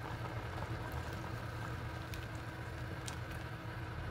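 Yogurt-based chicken soup simmering in an open steel pot: a steady low rumble with a few soft pops from the bubbling.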